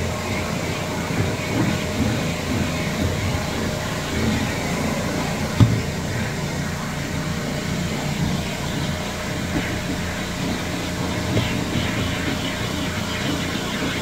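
Rotary floor machine running with its pad spinning on carpet: a steady low drone, with one brief thump about five and a half seconds in.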